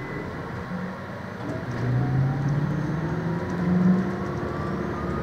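MAN Lion's City Hybrid bus accelerating, heard from inside the passenger cabin: a whine from its electric drive rises steadily in pitch, and a lower engine hum swells about one and a half seconds in.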